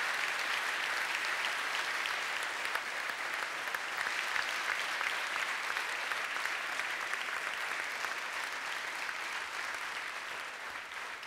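Audience applauding steadily, a dense patter of handclaps that tapers off slightly near the end.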